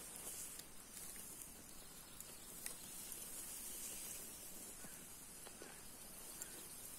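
Faint outdoor ambience: a steady high hiss with a few faint ticks.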